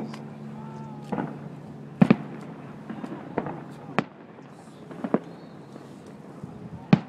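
Fireworks display: aerial shells bursting in a string of sharp bangs at irregular intervals, about ten in all, the loudest about two seconds in and near the end.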